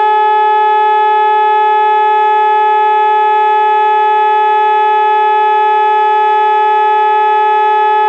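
HOWLER-M electronic siren sounding a loud, steady unwavering tone, the continuous test signal of a siren test.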